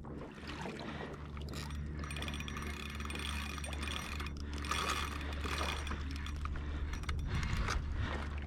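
Spinning fishing reel being cranked to bring in a hooked fish, its gears giving a steady whirring rattle.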